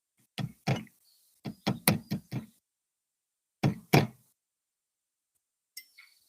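Pileated woodpecker hammering at wood with hard, single knocks in uneven groups: two, then a quick run of five, then two more. A faint, brief high sound follows near the end.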